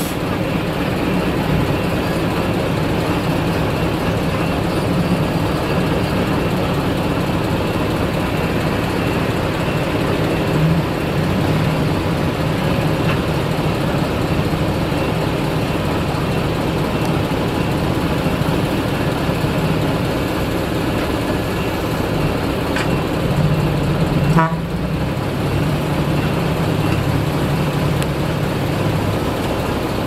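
Heavy diesel engine of earthmoving machinery running steadily, with a brief break about 24 seconds in.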